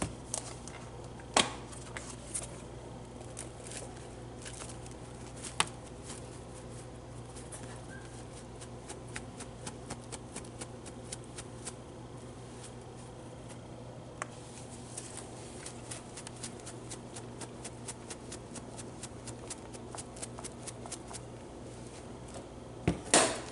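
Curry powder being shaken out of a large container onto raw chicken pieces in a plastic bowl: runs of light, quick rattling ticks with a few louder knocks of the container now and then, the last cluster near the end.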